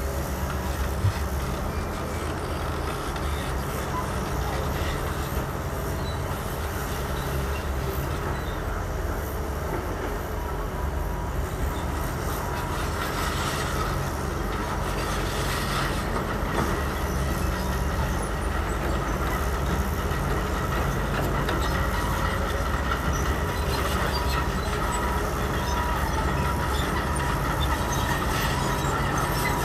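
Heavy diesel engines of hydraulic excavators (a Zoomlion ZE210E and a Komatsu PC210) running under load while digging and loading dump trucks: a constant low drone, with some added rattle around the middle.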